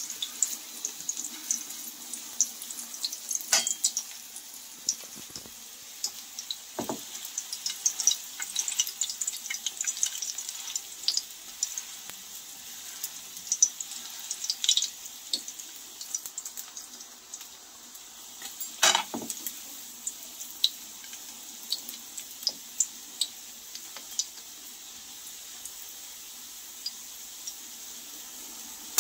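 Pholourie fritters frying in hot oil in a pan: a steady sizzle with frequent small crackling pops. A few sharp knocks of the metal skimmer against the pan, the loudest about 19 seconds in.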